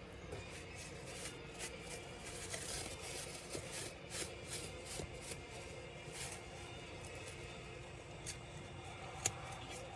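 Hands working on a laptop's parts and tools: an irregular run of light clicks, scrapes and rubbing, busiest in the first half, with one sharp click near the end.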